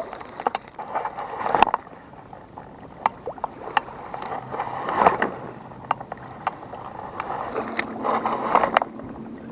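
Lake water at the shoreline, with many short, irregular splashes over a steady wash.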